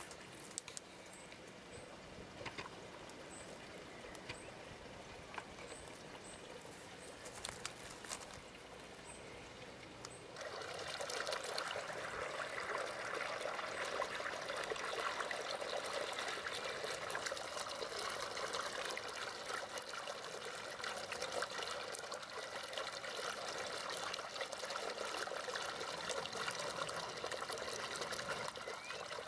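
Quiet outdoor ambience with a few faint high chirps and light clicks. About ten seconds in, a louder, steady sound of running water starts trickling and carries on without a break.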